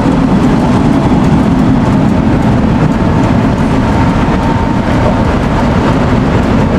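Loud, steady rumble of a large engine running, with a faint steady tone over it.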